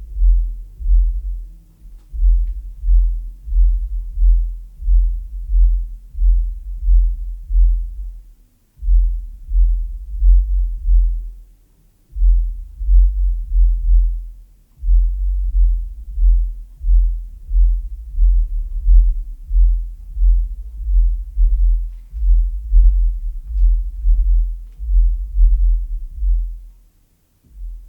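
Polk Audio PSW-10 subwoofer playing bass-heavy music: deep bass pulses a little over once a second, with a few brief breaks, and almost nothing above the low bass.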